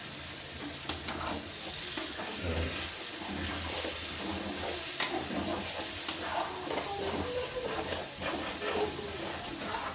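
Masala sizzling in hot oil in a pan, a steady high hiss, with four sharp clinks of a utensil against the pan.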